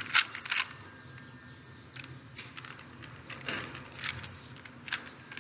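Plastic 3x3 Rubik's Cube being turned fast, its layers clicking and clacking at irregular intervals, with the loudest clicks near the start.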